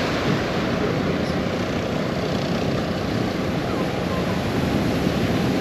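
Sea surf breaking and washing against a rock breakwater, a steady rush of noise, with wind rumbling unevenly on the microphone.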